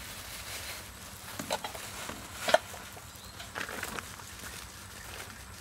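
Food-prep handling sounds: gloved hands working mashed food in a stainless steel bowl, with plastic rustling and a few scattered light clicks, the sharpest about two and a half seconds in.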